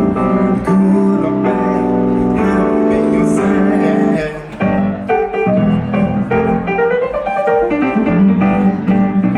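Background music: an instrumental passage led by piano with guitar, moving through sustained chords.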